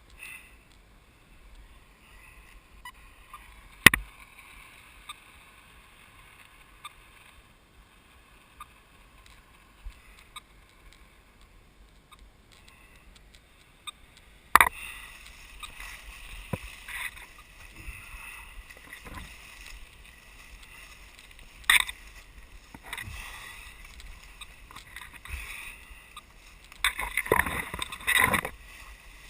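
Footsteps and brushing through dry leaf litter and undergrowth, with a few sharp snaps and a louder stretch of crackling rustle near the end.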